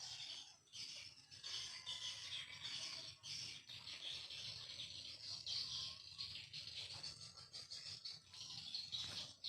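Swiftlet lure sound of the "leher jerapah" type: dense, continuous high-pitched twittering and chirping of swiftlets, played to draw swiftlets into a swiftlet house.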